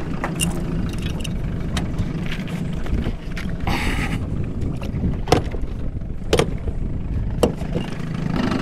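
Bow-mounted trolling motor being unlatched and lowered on its deck mount: about five sharp clunks and clicks spread over several seconds, with a brief rushing hiss about four seconds in. Under it runs a steady low rumble.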